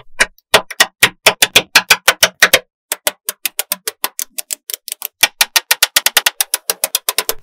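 Small magnetic balls clicking as they snap onto a magnet-ball structure: an even run of sharp clicks about five a second, a short pause about two and a half seconds in, then faster clicks, about eight a second.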